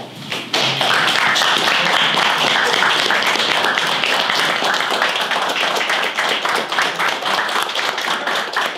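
Applause from a small group of people clapping, starting about half a second in and going on steadily.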